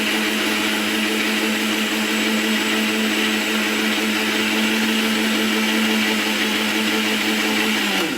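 Electric kitchen blender running steadily at a constant speed, blending a liquid cashew sauce, then switched off at the very end, the motor pitch sagging briefly before the sound cuts out.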